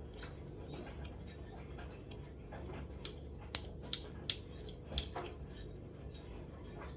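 Whisk clicking and scraping against a mixing bowl while stirring, with a few sharper clinks about halfway through.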